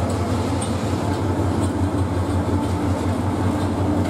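Bangladesh Railway diesel locomotive 2907 passing along a platform, its engine a steady low hum, with faint clicks now and then.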